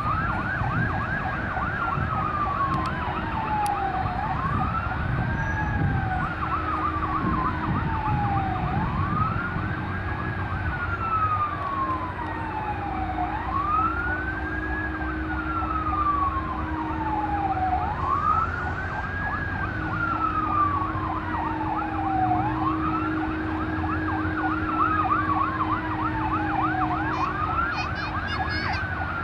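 Airport fire truck siren wailing in slow, even cycles, each one rising quickly and then falling slowly over about four and a half seconds, sounded during a water-cannon salute. Low engine rumble runs underneath.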